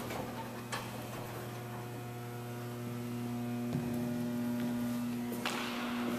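Steady electrical mains hum, a low tone with several higher overtones, with a few soft knocks and a short rustling noise near the end.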